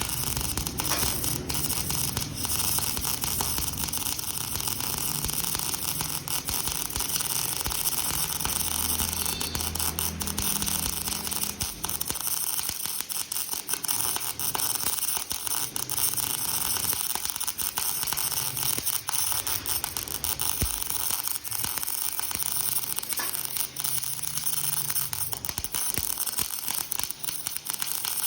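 Electric welding arc, a steady crackling hiss with dense irregular pops, running without a break.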